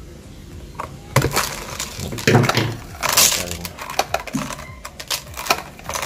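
Stacked plastic planter pots and their metal hanging chain being handled and pulled free: a series of clicks, knocks and clinks, with a longer scrape about three seconds in.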